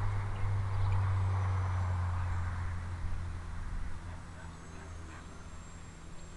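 Electric motor and propeller of a foam RC seaplane buzzing in flight, fading after about four seconds as the plane moves away.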